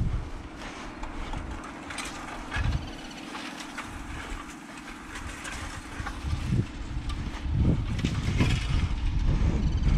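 Turbo-diesel pickup engine idling steadily, with footsteps swishing through grass and the clicks and rattles of a wire-and-stake farm gate being handled, which grow heavier near the end.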